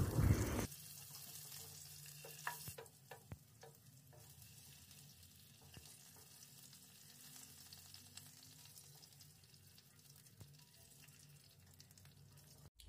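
Marinated chicken pieces sizzling faintly in hot oil in a nonstick pan, with a few light taps and scrapes of a spatula as the pieces are lifted out.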